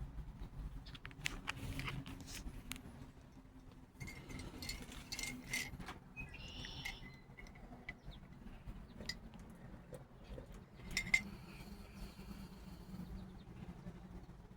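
Birds chirping faintly in short calls, among scattered light clicks and taps. The clearest calls come about halfway through and again about three-quarters of the way in.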